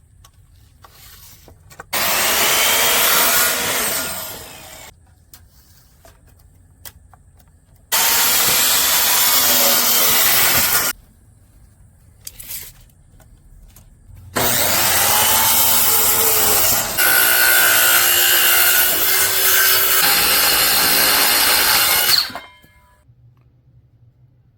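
Power saw cutting wood boards in three passes: a short cut, a second short cut, then a longer one, each starting with the motor spinning up and stopping abruptly.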